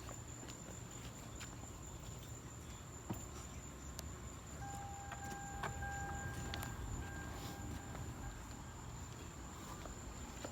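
2002 Toyota Solara being switched on: a few faint clicks over a steady low hum, and about five seconds in a steady electronic tone sounds for a few seconds. A thin high whine runs underneath.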